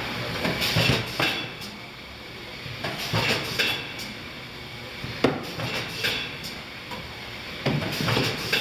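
Wexxar BEL 290H automatic carton-handling machine cycling: a steady machine hum with irregular metallic clanks, clacks and short hisses as its mechanism works the cartons, coming in bursts a second or two apart.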